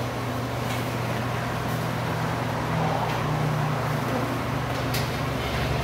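Steady low mechanical hum of commercial kitchen equipment, with a faint click about five seconds in.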